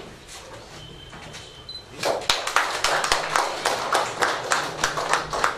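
A small group of people clapping their hands in applause, starting suddenly about two seconds in.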